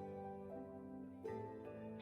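Soft background music: sustained instrumental notes with plucked and keyboard tones, a new chord coming in about a second in.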